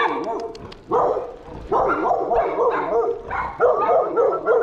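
A dog barking repeatedly, in several bursts of barks.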